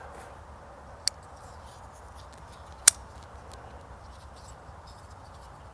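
Two sharp clicks from handling a folding pocket knife, about two seconds apart, the second louder, over a faint steady hiss.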